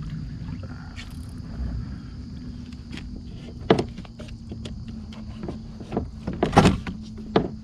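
A few sharp knocks and bumps on a plastic fishing kayak, the loudest cluster near the end, over a steady low hum.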